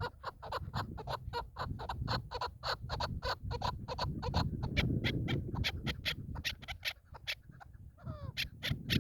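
Chukar partridge calling, a fast run of short clucking 'chuk' notes at about five a second, with a brief falling call about eight seconds in. A low rumble of wind or handling noise runs underneath.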